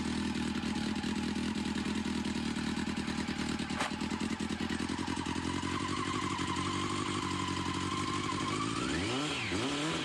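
Race motorcycle engine running at a steady idle. A single click comes about four seconds in, and near the end the throttle is blipped and the revs rise and fall.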